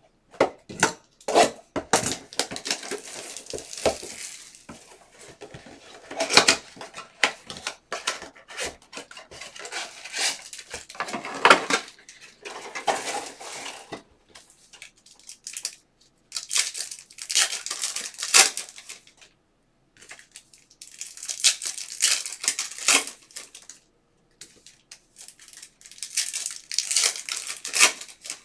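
Foil trading-card pack wrappers crinkling and tearing as a box of basketball card packs is opened and the packs ripped open, in bursts of crackling every few seconds.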